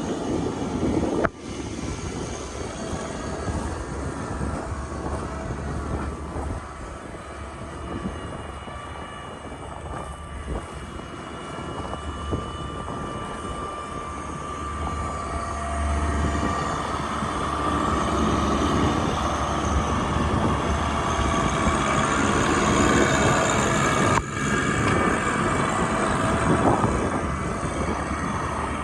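Steady mechanical rumble of vehicle engines, with a whine that grows louder about halfway through.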